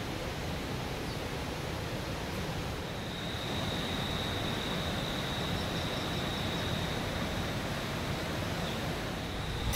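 Steady rain falling in forest, an even hiss. About three seconds in, a thin high steady tone joins it.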